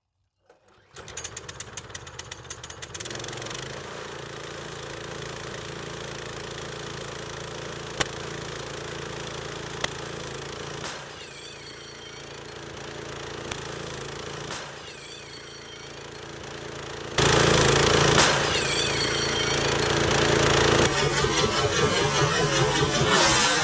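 Small gas engine of a budget bandsaw sawmill starting up and then running steadily, jumping suddenly louder about seventeen seconds in.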